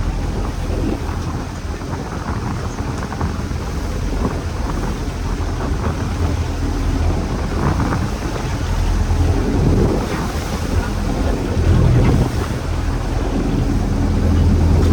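A small fishing boat's engine running steadily at sea, with wind buffeting the microphone and waves washing and slapping around the hull.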